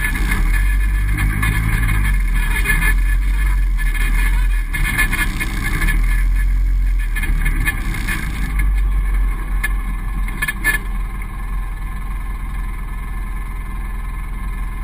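Polaris RZR side-by-side's engine running steadily as it drives slowly up a rocky gravel wash. The engine eases a little quieter past the middle, and a few sharp clicks come about two-thirds of the way through.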